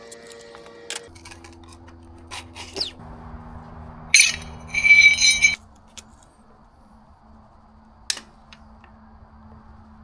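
Socket ratchet and metal tools working the bolts of an outboard lower unit's water pump housing, with a few light clinks and one loud metallic rattle about four seconds in that lasts about a second and a half and stops suddenly. Soft background music with held chords runs underneath.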